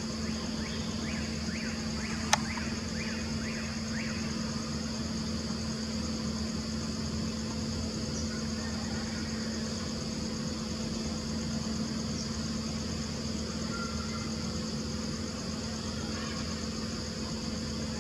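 Steady background: a low, even hum and a steady high-pitched whine, with a single sharp click about two seconds in and faint short chirps over the first few seconds.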